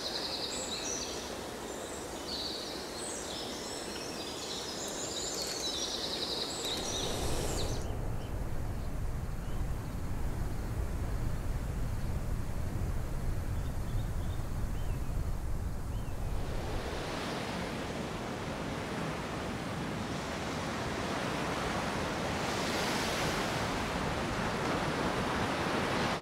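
A layered nature soundscape: birds chirp and sing over a steady hiss, then after about seven seconds the birds drop out and a deep, steady rush of wind takes over. From about sixteen seconds, ocean waves surge in and wash back, building twice, before the sound cuts off suddenly at the end.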